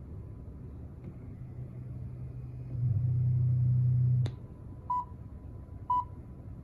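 Pan-tilt security camera's motors running as the head turns through its self-test calibration: a low drone that grows louder and stops with a click about four seconds in. Two short beeps follow, about a second apart.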